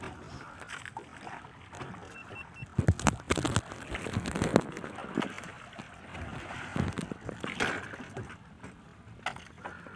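Water sloshing against the hull of a small outrigger fishing boat, with wind on the microphone and scattered knocks and clatter on board.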